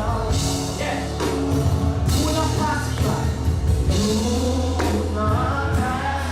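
Live gospel worship music: singing over a band, with steady sustained bass and keyboard notes underneath.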